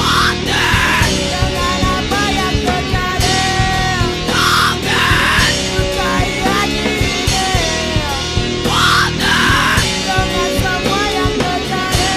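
Rock music with a steady drum beat and a gliding lead melody, laid over the footage as a soundtrack.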